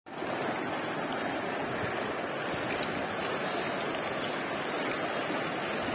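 Muddy, silt-laden floodwater from a rain-swollen stream rushing down an overflowing channel: a steady rush of water.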